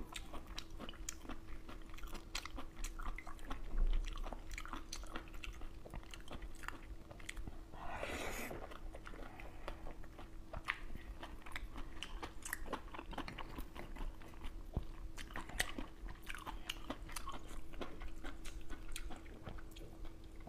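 Close-up eating sounds: many small wet mouth clicks and chewing as an oyster with chili sauce is eaten, with one louder drawn-out sound about eight seconds in as it is taken from the shell. A faint steady hum runs underneath.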